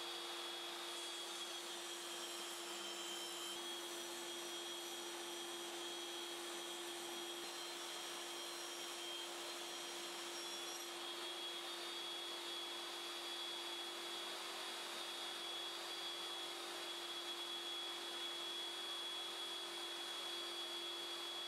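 Kärcher wet-and-dry shop vacuum running steadily on the saw's dust extraction, with a steady motor whine and hum.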